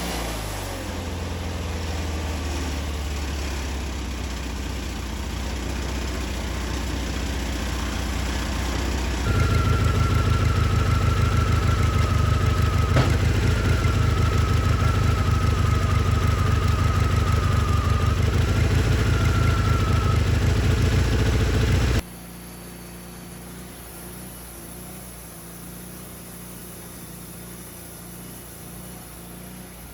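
Wood-Mizer LT40 band sawmill running steadily. About a third of the way in it grows louder and a thin wavering whine joins in as it cuts. It then drops abruptly to a quieter steady hum.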